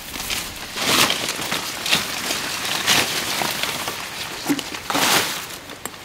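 Crunching and rustling of dry vegetation in uneven strokes about a second apart.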